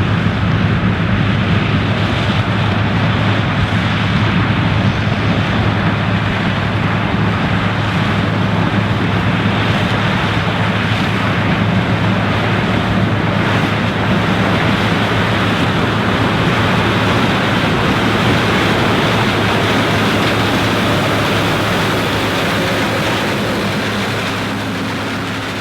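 John Deere 9750 STS combine harvesting corn: its 8.1-litre six-cylinder diesel drones steadily under load over the rush of the rotary threshing machinery and corn head, fading out near the end.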